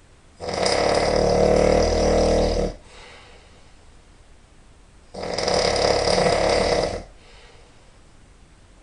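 A person snoring really loud: two long snores, each about two seconds, a few seconds apart, with quieter breathing between.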